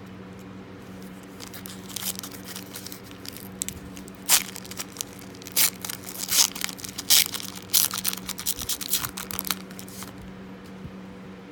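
Foil trading-card pack wrapper being torn open and crinkled, in a run of short crackling rips that are loudest in the middle.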